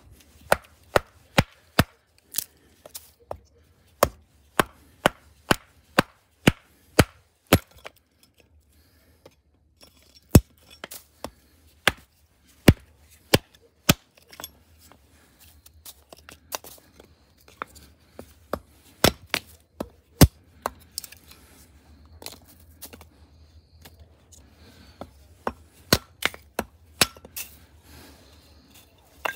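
Hatchet splitting kindling on a wooden chopping block: sharp chops of the blade into wood, in quick runs of about two a second, with a few short pauses between runs.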